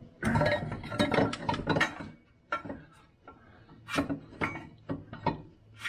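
Metal clanking and scraping as a garden-tractor muffler and its steel mount are worked into place by hand: a quick run of clinks and rattles in the first two seconds, then a few single knocks.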